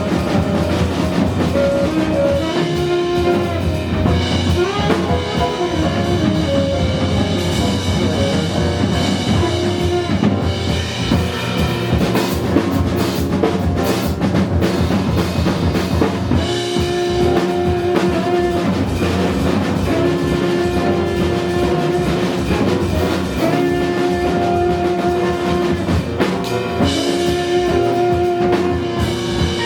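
Live jazz band playing, drum kit prominent over bass, guitar and piano. Long held notes sound through the second half.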